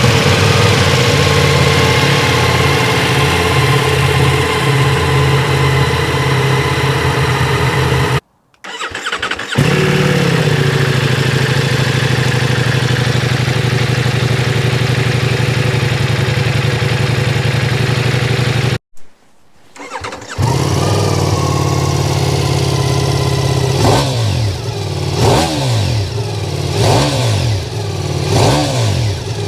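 Ducati Multistrada V4 S's V4 engine idling steadily through its exhaust end can, broken twice by short silences. Near the end the throttle is blipped about six times, the revs rising and falling quickly each time.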